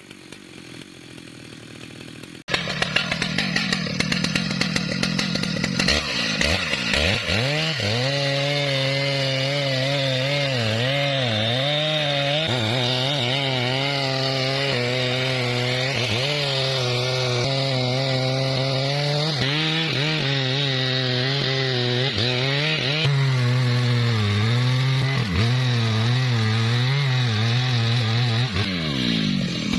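Two-stroke chainsaw cutting through thick wood, its engine note sagging and recovering again and again as the chain bites under load. Near the end the pitch falls away as the throttle eases.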